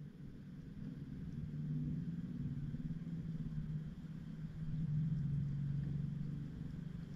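Underwater recording with a steady low hum that grows a little louder about halfway through, and a few very faint ticks.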